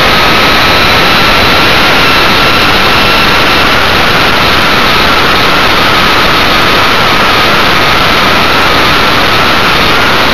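Multiplex Funjet Ultra model jet in flight, heard from a camera on the airframe: a loud, steady, high-pitched whine from its pusher motor and propeller, drifting slightly in pitch, over heavy wind rush on the microphone.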